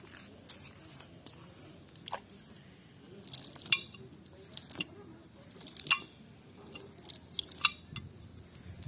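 Wet, muddy cast net being handled and spread out on grass: short crackling, squelching rustles, with four louder bursts in the second half.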